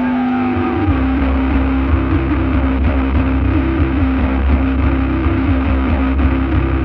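Stoner/doom rock intro: a wavering, gliding high tone dies away as a heavy, distorted low guitar-and-bass drone comes in about a second in and holds steady.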